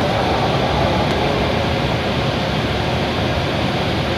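W7 series Shinkansen train creeping along the platform and coming to a stop, giving a steady whirring hum with a rushing noise that eases slightly as it halts.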